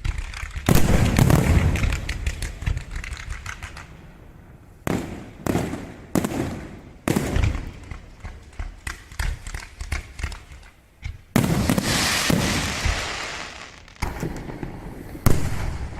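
Aerial fireworks exploding in quick succession: loud bangs with echoing tails, and dense crackling barrages about a second in and again past the middle, with single heavy reports in between and a last big bang near the end.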